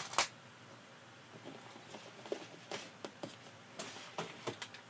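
Plastic compartment case of metal eyelets handled on a craft table: one sharp click just after the start, then scattered light taps and clicks.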